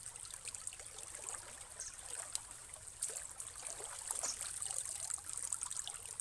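Shallow water splashing and trickling in many small irregular splashes and drips as hands grope through it for fish, over a steady high-pitched hiss.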